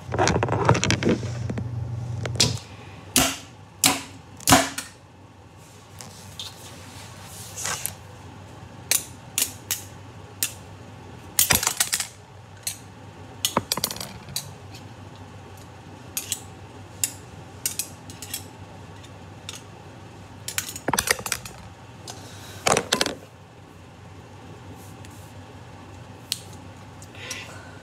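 K'nex plastic rods, connectors and a gear clicking and knocking against each other as they are handled and fitted together. Irregular sharp clicks, a few at a time, with a denser rattle and a low hum in the first couple of seconds.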